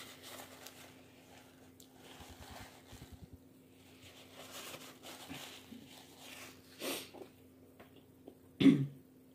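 Eating sounds from close to the microphone: chewing and mouth noises as a cheeseburger is eaten, with a napkin wiped across the mouth. There is a short louder sound near the end and a smaller one about a second before it, over a faint steady hum.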